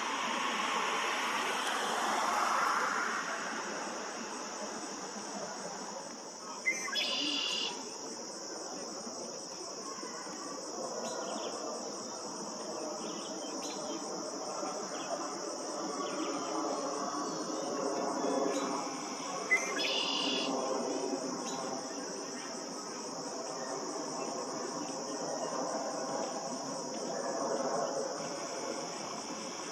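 Red-winged blackbird singing its song twice, each a sharp opening note followed by a buzzy trill about a second long, some thirteen seconds apart. Under it runs a steady high insect drone.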